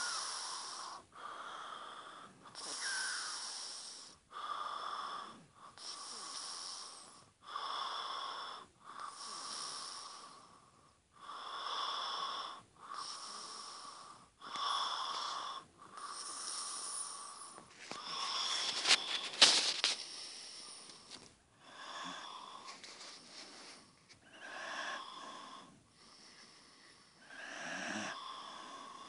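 Heavy snoring breaths of a sleeper, with a wheezy, whistling note, inhale and exhale alternating steadily about every one and a half seconds. A short burst of sharp clicks about 19 seconds in is the loudest moment.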